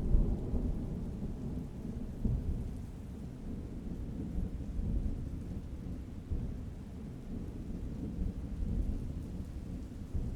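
Heavy tropical rainstorm heard as a low, uneven rumble that swells and fades, with little of the hiss of falling rain on top.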